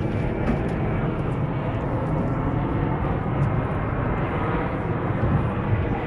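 Steady low rumbling noise aboard a fishing skiff at sea, even throughout with no distinct knocks or calls.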